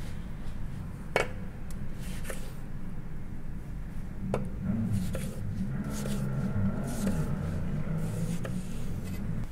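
Kitchen knife cutting through a rolled cucumber garnish and knocking on a wooden cutting board: about five short sharp knocks, the loudest about a second in.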